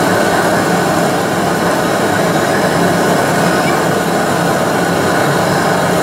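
Propane deep fryer running with battered bowfin pieces frying in the oil: a steady loud hiss of sizzling oil and burner over a low hum.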